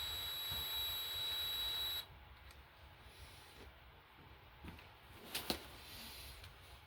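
Electric drill running with a steady high whine, boring out a broken bolt in the engine block with a reverse drill bit, then stopping suddenly about two seconds in. A couple of small clicks follow near the end.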